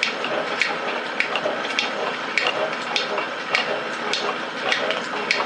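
Rhodes metal shaper running, its ram stroking back and forth across a steam chest casting with a sharp click about every 0.6 s over the steady hum of the drive.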